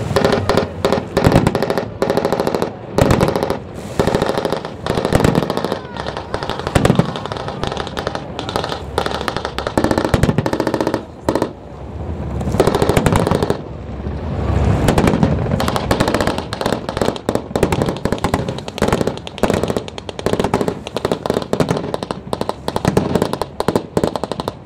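Rapid bursts of machine-gun fire, blank rounds from deck-mounted guns on naval patrol boats in a mock sea battle, many shots in quick succession with brief pauses between bursts.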